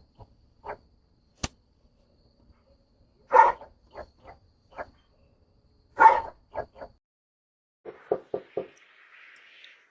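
A dog barking: two loud barks a few seconds apart, each followed by a few weaker ones, then a quick run of short barks near the end. A single sharp click about a second and a half in.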